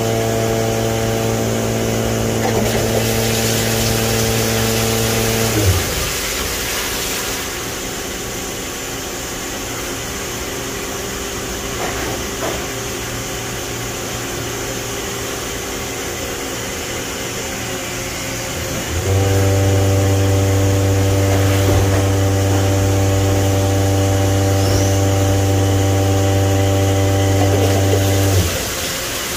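Matsuura ES-450 machining center's 15,000 rpm spindle running at a steady speed with a constant pitched hum, winding down and stopping about six seconds in. It starts again abruptly about two-thirds of the way through, runs steadily, and cuts off near the end. A steady machine hum continues underneath.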